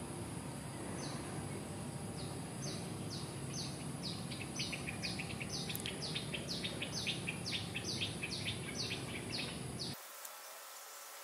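Outdoor tropical ambience: a bird calls a long series of short, high, falling notes that come faster in the middle, over a steady high insect drone and low background noise. Near the end the low background cuts off abruptly, leaving only insect chirring.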